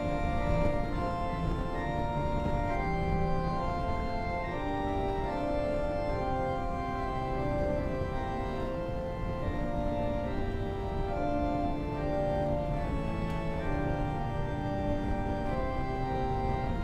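Church organ playing slow, sustained chords, the notes changing every second or so.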